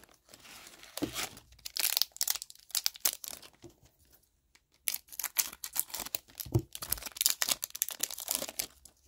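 Foil wrapper of a hockey card pack crinkling and tearing open by hand, in two spells of a couple of seconds each with a short pause between.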